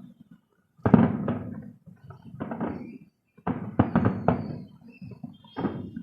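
Fireworks shells bursting: a string of sudden booms, each trailing off, with several in quick succession in the middle.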